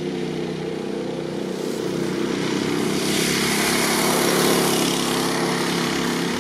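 Go-kart's Predator 212cc single-cylinder engine, stock but with its governor adjusted for more RPM, running with a steady note as the kart drives up and passes. It grows louder to a peak about four seconds in, then eases off a little.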